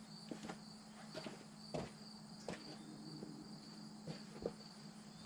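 Faint scattered clicks and light taps, like parts and hardware being handled during assembly, over a steady high-pitched tone and a low hum.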